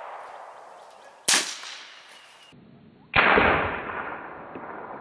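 A single shot from a Chiappa Little Badger .22LR rifle firing a CCI Quiet-22 segmented slow-subsonic round: a sharp crack about a second in that fades within a second. About three seconds in, the same shot is replayed at quarter speed as a lower, drawn-out boom with a long fade, over a steady hiss.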